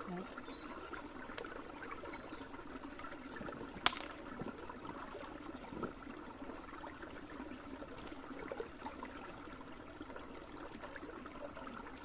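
Small shallow forest stream trickling and bubbling over stones, steady throughout. One sharp click stands out about four seconds in.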